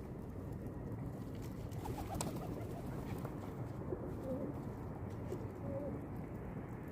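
Pigeons cooing softly now and then over a steady low background rumble, with a couple of faint clicks.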